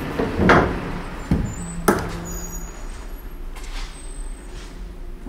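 Town street sounds with a steady low rumble, broken by a few knocks in the first two seconds, the last a sharp click.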